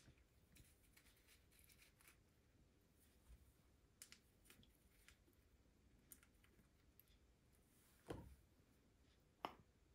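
Near silence with faint small clicks of a hex key turning the screws on a Pinion gearbox cover. Two louder taps come near the end, about a second and a half apart.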